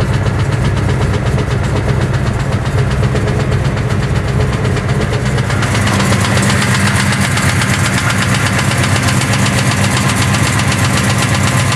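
A 455 cubic-inch V8 engine running steadily, with a fast, even ticking through its running note that the owner calls a bad sound. The higher part of the sound grows louder about six seconds in.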